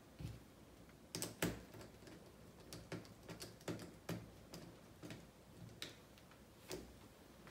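Faint, irregular small clicks and ticks of a nut driver and plastic RC car parts as a wheel is fitted and its wheel nut tightened.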